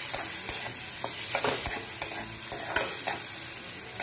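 A metal spatula scraping and clinking irregularly against a metal kadai, over the steady sizzle of a tomato-onion masala frying in oil as it is sautéed.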